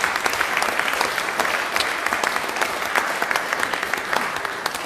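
Audience applauding, dense steady clapping that eases off near the end.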